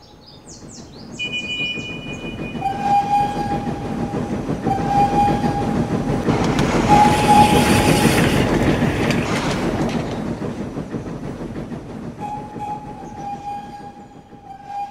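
Steam train passing: a rumbling run that builds to its loudest about eight seconds in and then fades away, with the whistle blowing in several long, steady blasts.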